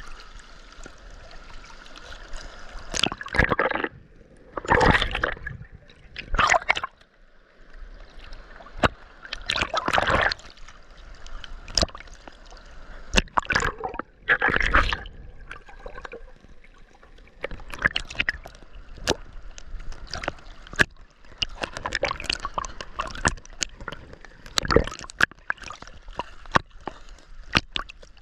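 Seawater splashing and sloshing close by in irregular surges, with sharp little clicks and drips in between.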